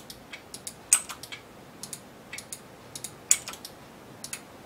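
Irregular clicks of a computer keyboard and mouse in use, a few clicks a second, with two louder key strikes about a second in and a little past three seconds.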